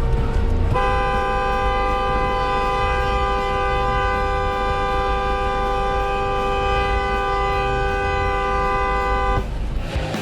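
A vehicle horn gives a short toot, then holds one long, steady two-tone blast of about eight and a half seconds that cuts off near the end. It is honking at another driver, and a low rumble of the car runs underneath.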